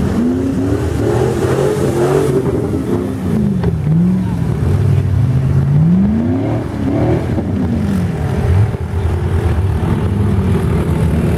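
The Argo Avenger 8x8 amphibious ATV's Kohler V-twin engine revving up and down again and again as the machine works through deep mud. In the last few seconds it runs at a steadier speed.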